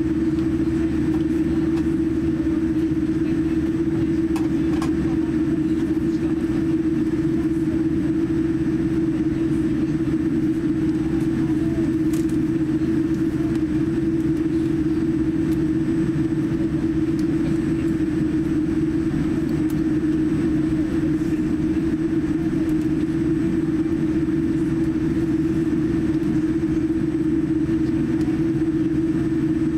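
Boeing 787-9 cabin noise while taxiing: the engines and air-conditioning give a steady rumble with a constant low hum.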